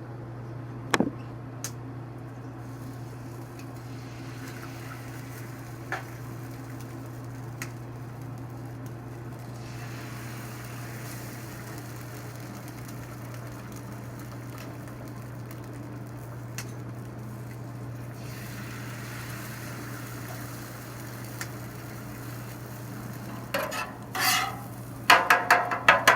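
Eggs sizzling on a hot oiled Blackstone flat-top griddle under a steady low hum, with a sharp click about a second in and a few light taps. Near the end, a metal spatula scrapes repeatedly across the steel griddle top.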